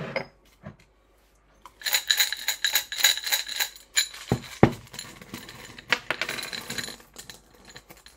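Small metal charms jingling and clinking as they are shaken and cast out onto a table of cards, starting about two seconds in, with two louder knocks about four and a half seconds in.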